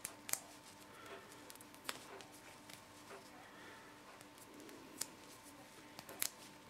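Faint handling sounds of black insulation tape being wrapped around the ends of flexible wires: a few scattered soft clicks and crinkles.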